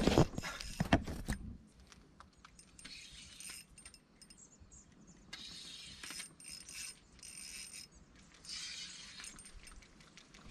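Spinning reel worked in short bursts of whirring and clicking as a hooked fish is played on a bent rod, after a few loud knocks in the first second and a half.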